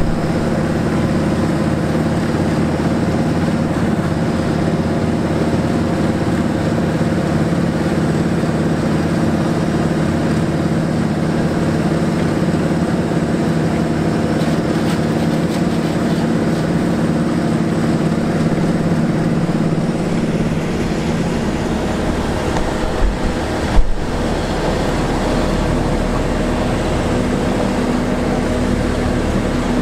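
Heavy diesel engines of road-paving machinery running steadily with a constant engine hum. About two-thirds of the way in the engine note shifts, and two low thumps follow, the loudest sounds.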